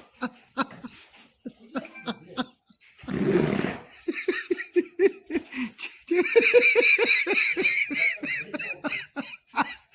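People laughing hard in rhythmic bursts of about four a second, rising to a shrill, high-pitched laugh from about six seconds in. A short rush of noise comes about three seconds in.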